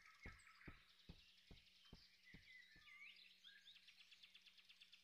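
Very faint woodland ambience with birds chirping, and soft, evenly spaced taps, about two or three a second, that fade away over the first three seconds.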